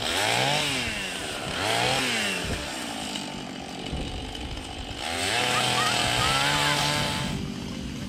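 Gasoline chainsaw revving up and falling back while cutting: two short revs in the first two seconds, a lower idle, then a longer high rev from about five seconds in that drops off near the end.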